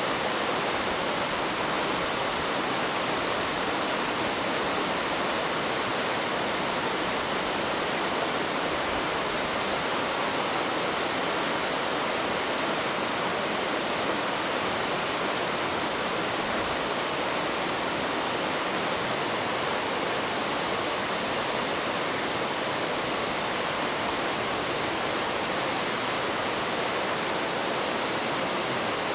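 Steady, even rush of fast-flowing water running through a trout farm's tank.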